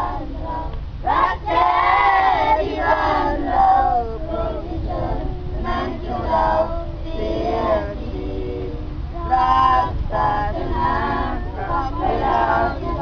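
A group of voices, children's among them, singing together in sustained, wavering lines.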